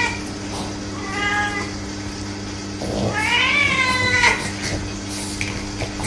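Domestic cat yowling in annoyance while another animal nuzzles it: a short call about a second in, then a longer call around three seconds in that rises and then falls.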